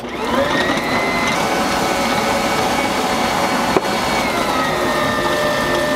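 Electric stand mixer running, its beater creaming butter and sugar in a stainless steel bowl. The motor spins up at the start to a steady whine, with a single knock a little before four seconds in and a slight drop in pitch just after.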